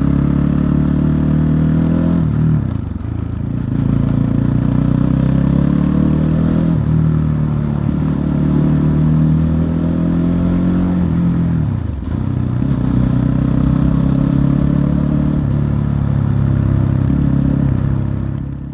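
Fantic Caballero 500 scrambler's single-cylinder four-stroke engine heard onboard while riding, its pitch rising repeatedly as it accelerates, with brief dips about two and a half seconds in and again around twelve seconds in as the throttle is eased or a gear is changed. The sound fades out at the very end.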